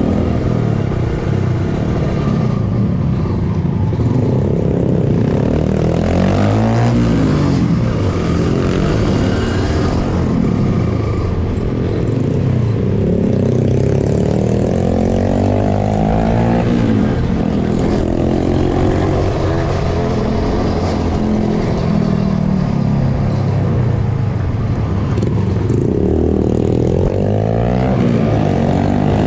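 Trail motorcycle engine under way, revving up and easing off again and again, its pitch rising and falling every few seconds, over a steady rushing noise.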